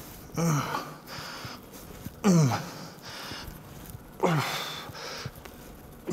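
A man grunting with effort on each repetition of cable upright rows: a short grunt falling in pitch about every two seconds, with breathing between them.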